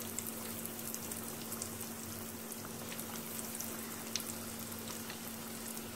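Breaded chicken cheese rolls deep-frying in hot oil on a low flame: a steady bubbling sizzle with small crackles. A faint steady hum runs underneath.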